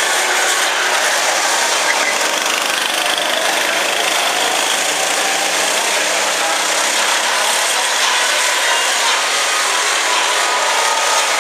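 Go-kart engines running at speed around the track, a steady sound with no pauses and a pitch that shifts slightly.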